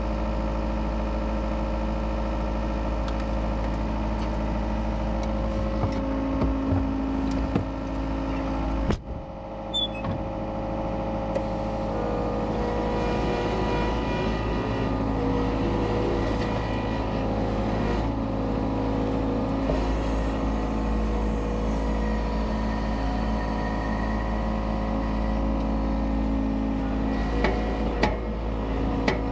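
Diesel engine of compact construction equipment running steadily under work, with a brief drop in sound about nine seconds in and a few knocks.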